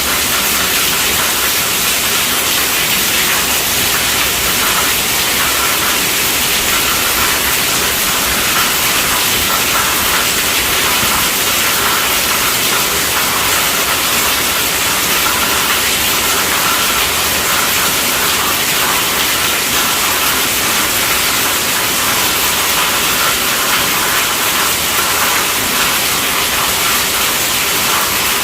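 Rain falling steadily and heavily, a dense, even hiss with no separate drops standing out.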